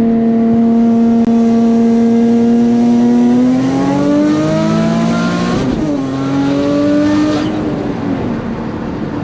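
Turbocharged Nissan 350Z's VQ35HR V6 held at steady revs, then revving up, dropping sharply about halfway, climbing again and falling away near the end. This is a brake-boost attempt, revving against the brakes to build boost, which the driver says he hasn't got the hang of.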